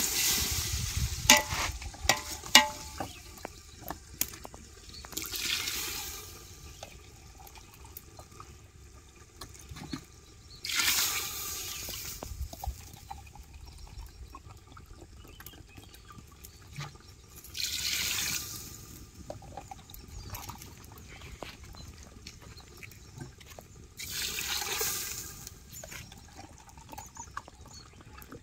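Water poured from a glass into a pot of fried chicken and masala, one glassful at a time: five separate pours about six seconds apart, each lasting about a second. Two sharp knocks near the start.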